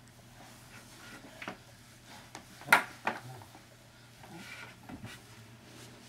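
A few scattered sharp knocks and clatters from babies banging on and around a wooden coffee table, the loudest a single hard knock near the middle.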